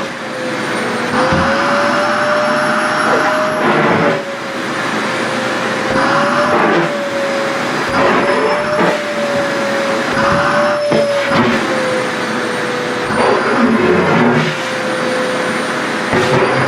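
Sharp EC-KP7F-A vacuum cleaner running with a steady whine whose pitch sways slightly up and down as the nozzle sucks at skirt fabric. Short surges of rushing air come every couple of seconds.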